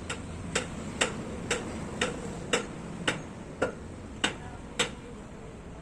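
A row of ten sharp taps, about two a second, slightly uneven in spacing, over a steady low background hum.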